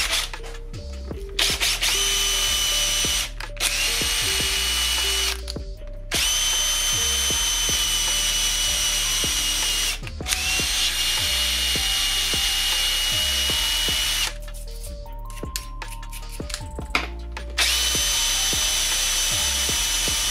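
Electric hand drill running with a steady whine as it bores into the end of an aluminium extrusion, in several long runs with brief stops and a longer lull of about three seconds in the second half.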